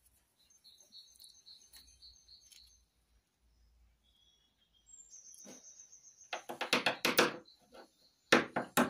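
Socket ratchet wrench clicking in two quick runs as bolts are undone on a Simca Aronde engine, the second run near the end the loudest. Faint high chirping sounds in the first few seconds.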